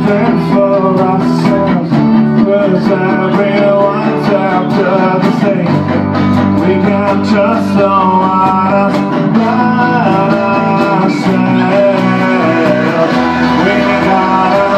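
Live band playing a guitar-led song over a bass line that shifts note every second or two.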